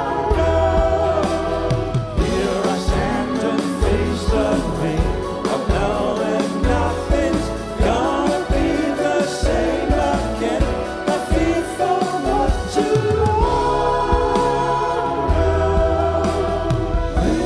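A pop band performing a slow song, with a male lead vocal over keyboards and a deep, steady bass line.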